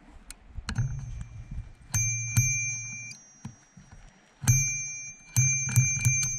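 Bicycle handlebar bell rung again and again, about ten strikes in uneven bursts, each leaving a clear ring that hangs for up to a second, the quickest run of strikes near the end. It is rung as a warning to a bear on the trail ahead.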